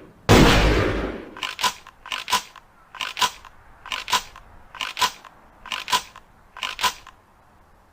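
Ithaca Model 37 pump-action shotgun fired once just after the start, the blast fading over about a second. Then come seven evenly spaced double metallic clicks from the gun's mechanism, a little under a second apart.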